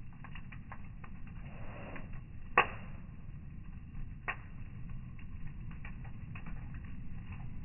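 Wood fire crackling in a steel fire pit: scattered small pops and snaps over a low steady rumble, with one sharp loud pop about two and a half seconds in and a smaller one near four seconds.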